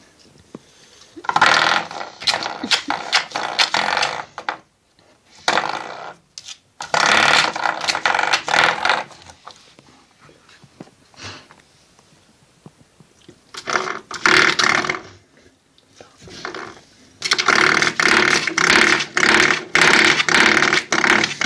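Coiled-spring door stop twanging and rattling as a puppy bites and paws it, in four bursts of fast buzzing vibration with quieter gaps between; the longest burst is near the end.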